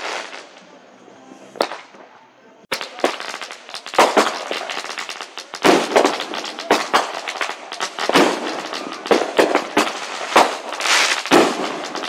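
Fireworks going off: a few separate bangs, then from about three seconds in a dense, continuous run of sharp pops and crackles from bursting aerial shells.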